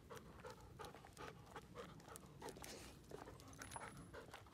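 A dog panting faintly in quick, regular breaths while walking on a leash.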